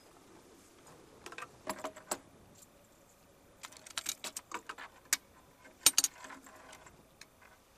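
Metallic clicks and clatter from handling a Stoner 86 light machine gun and its belt of linked cartridges on a table, in several short clusters. The sharpest knocks come about six seconds in.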